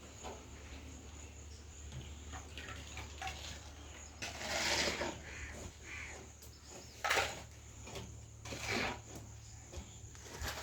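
A bird calling three times, the first call about a second long and the other two shorter, over a steady low hum.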